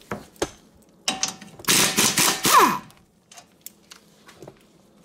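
Pneumatic air tool run in one burst of about a second and a half, backing out a 12 mm bolt on the brake line and ABS line bracket of a Subaru Outback's front strut, ending in a falling whine as it spins down. A few sharp clicks of the tool and bolt come before and after it.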